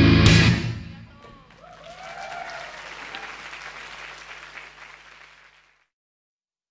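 A live rock band's final chord on electric guitars, bass and drums stops abruptly about half a second in, followed by audience applause that fades out to silence near the end.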